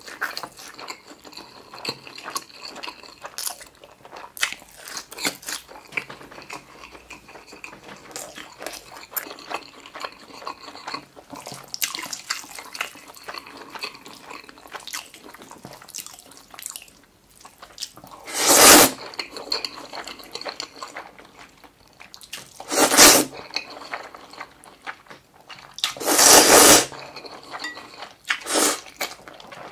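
Close-miked chewing and wet mouth sounds of a person eating spicy buckwheat noodles, with small clicks and smacks throughout. Three loud noodle slurps stand out: one about two-thirds of the way in, another a few seconds later, and a longer one near the end.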